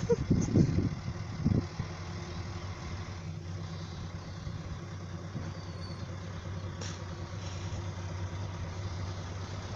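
Diesel railbus engine idling, a steady low hum at low revs, while the railcar waits for the level crossing ahead to activate.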